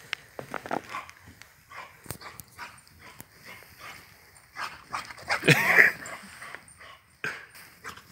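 A young boxer dog gives one short call that bends up and down in pitch a little past halfway, amid scattered footsteps in snow.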